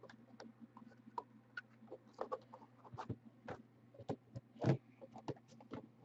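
Scattered light clicks and taps as cards are handled and drawn out of an open aluminium card case, one louder tap near the end, over a faint steady low hum.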